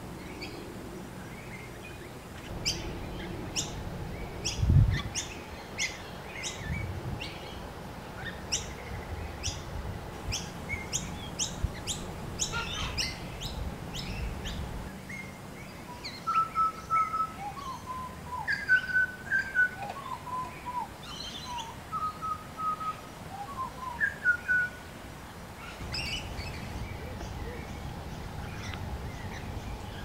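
Grey butcherbird singing: quick runs of short, sharp high notes through the first half, then clear, lower whistled phrases in the second half. A dull low thump about five seconds in.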